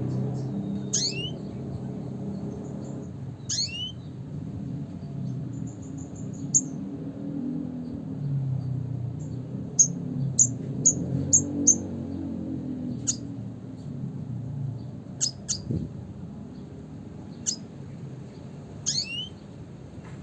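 Red siskin (Spinus cucullatus) giving scattered high calls: a few sweeping notes and, about halfway through, a quick run of five short chips, over a steady low rumble.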